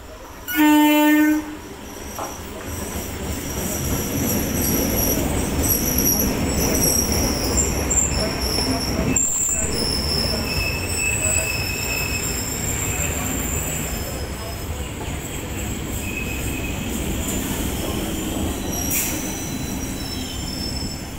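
Suburban electric local train sounds one short horn blast about half a second in. It then rumbles in alongside the platform, with high squeals from its wheels and brakes coming and going as it slows.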